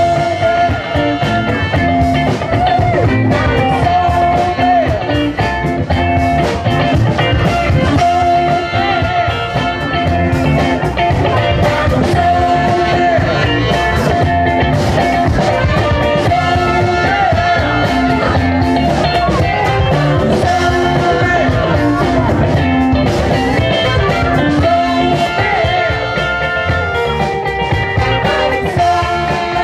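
Live soul band playing through a loud outdoor PA: singing, electric guitar and horns over a steady beat.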